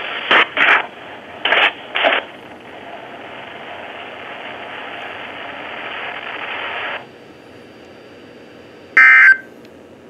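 Weather alert radio's speaker giving the hiss of the NOAA Weather Radio channel between announcements, broken by four short loud blips in two pairs in the first two seconds. The hiss cuts off abruptly about seven seconds in, and one short, high electronic beep sounds near the end.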